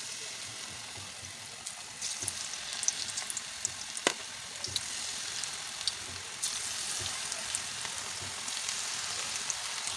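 Potato-and-onion pakoda fritters deep-frying in hot oil in a kadai: a steady sizzle of fine crackles and bubbling, a little louder from about two seconds in. There is a single sharp click about four seconds in.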